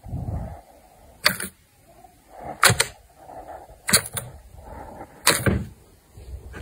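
Thick, glossy slime being pressed and kneaded by hand in a bowl: soft wet squishes with four sharp pops, about one every second and a third.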